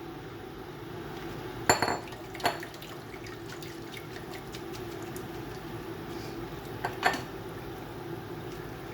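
Kitchen dishes and utensils knocking and clinking a few times, with a pair of knocks near the end, over a steady low hum.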